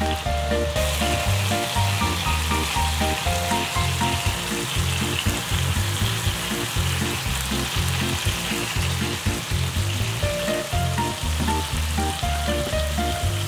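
Chicken-and-tofu hamburger patties sizzling in oil in a frying pan over medium heat, a steady hiss that runs without a break. Background music with a melody over a bass line plays along with it.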